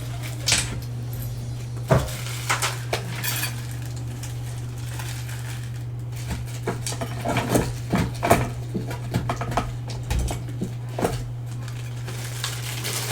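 Small hardware parts from a flood-light kit, such as nuts and screws, clinking and clicking irregularly as they are handled and set down. A steady low hum runs underneath.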